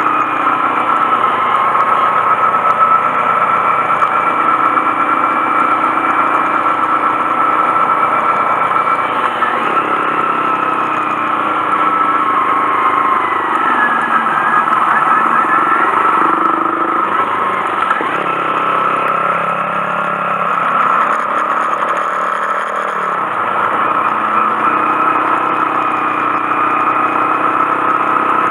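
Honda Monkey 125's single-cylinder engine running continuously under way, its pitch falling near the middle and dipping then rising again later as the rider changes speed.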